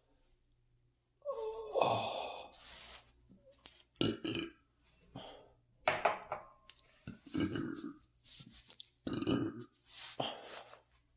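A man belching with a very full stomach: a long burp that bends in pitch about a second in, followed by several shorter burps.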